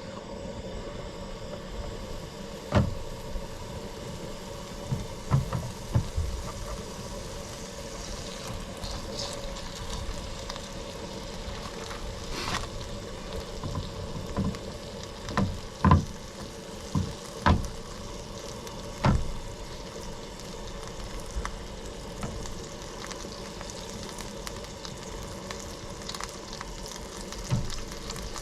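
Bread dough frying in grease in a pan, a steady sizzle broken by about a dozen sharp knocks and clinks.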